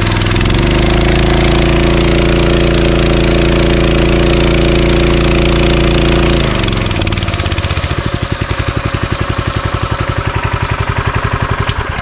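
Honda GX160 single-cylinder four-stroke petrol engine driving a Davey firefighter pump, throttled up to high revs about half a second in and held steady, then throttled back down about six seconds in to a slower, pulsing low idle.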